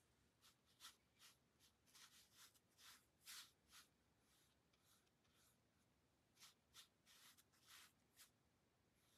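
Faint swishing of a watercolour brush loaded with clear water stroking across textured watercolour paper, as the sky area is wetted before a wash. About a dozen short strokes in irregular runs, with a pause of over a second around the middle.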